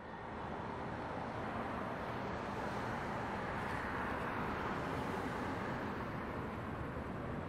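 Steady rushing background noise, like distant traffic ambience, swelling over the first second and then holding level.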